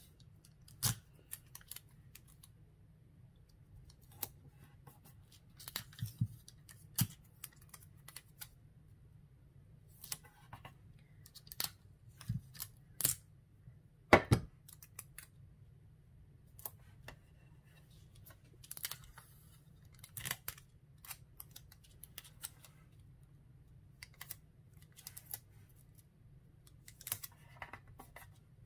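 Hands taping the edges of a paper shaker card: scattered clicks, taps and short rustles of clear tape being pulled from a desktop tape dispenser and pressed down. A sharper knock about halfway through as the dispenser is moved and set down on the cutting mat.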